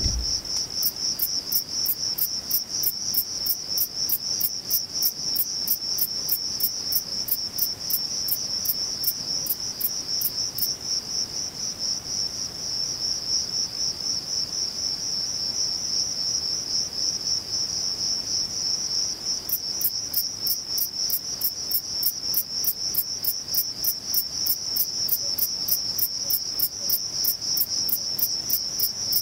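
Male Thyreonotus corsicus bush cricket stridulating, rubbing its reduced wings together: a steady, high-pitched, finely pulsed trill. Over the first ten seconds, and again from about two-thirds of the way in, it carries a run of sharp ticks at about three a second.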